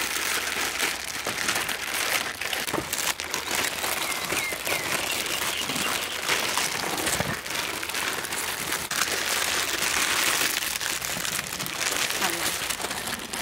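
Plastic instant-noodle packets being torn open and crinkled by several people at once: a dense, continuous crackle of wrappers.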